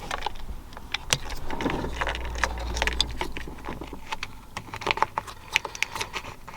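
Small plastic clicks, taps and rattles from handling a steering-wheel wiring connector and plastic trim piece and pushing them into place, many irregular sharp clicks throughout.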